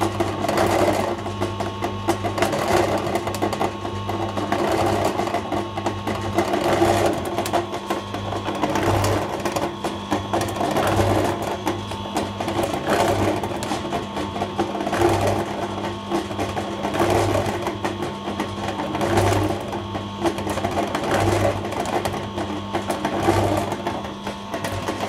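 Atika 145-litre electric concrete mixer running, its drum turning on the drive ring. A steady motor hum with a rhythmic swell of rumbling about every two seconds.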